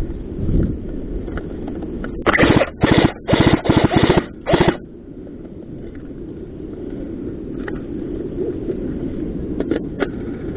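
Airsoft rifle firing close by in about five short full-auto bursts of rapid clicks, packed together over a couple of seconds.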